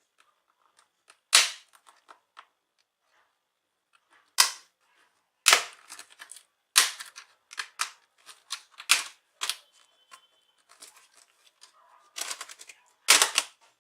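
Plastic snap-fit clips of an Acer Aspire E15 laptop's keyboard panel popping loose as the panel is pried off: a series of sharp, irregular clicks and cracks, some single and some in quick clusters.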